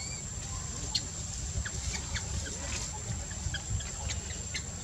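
Infant long-tailed macaque giving short, high squeaks scattered through, over a steady high-pitched insect drone and a low rumble of wind on the microphone.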